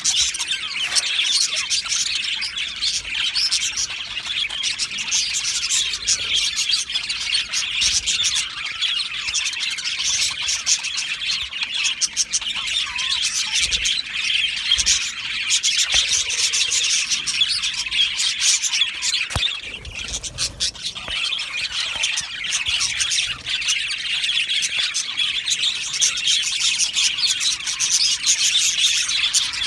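A colony of budgerigars chattering and chirping continuously, many birds at once in a dense warbling chorus, with a brief lull about twenty seconds in.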